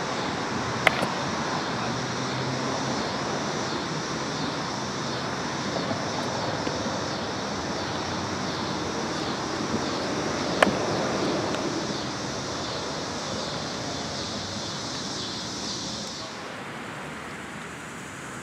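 Steady outdoor noise with a high, even buzz on top that stops about sixteen seconds in. Two sharp knocks cut through it, about a second in and again about ten and a half seconds in.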